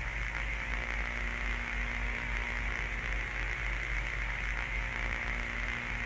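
Steady static hiss over a low mains hum: the noise bed of a played-back recording.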